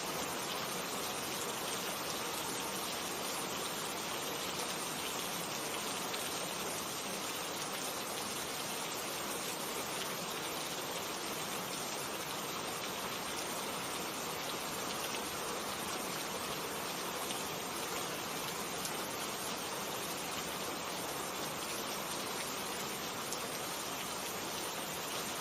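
Steady rain falling, an even, constant hiss of many drops with no thunder.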